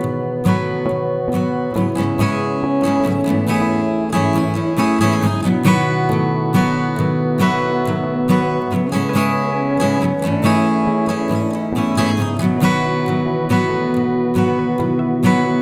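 Background music: acoustic guitar strumming and picking in a steady rhythm.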